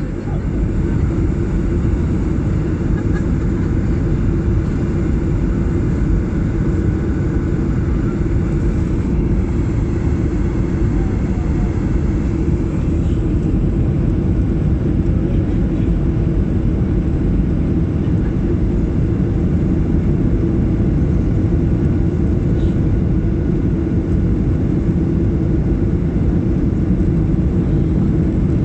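Steady low rumbling noise of a Ryanair Boeing 737 jet airliner on its landing approach, holding at an even level with no distinct thump.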